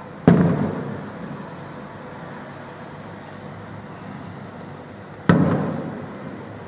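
Two aerial firework shells bursting about five seconds apart, each a sharp boom followed by a rumbling echo that fades over a second or so.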